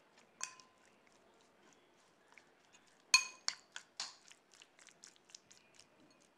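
Metal spoon clinking against a ceramic bowl while mixing raw chicken pieces with spices. One knock about half a second in, then from about three seconds in a quick run of clinks, about four a second, the first the loudest.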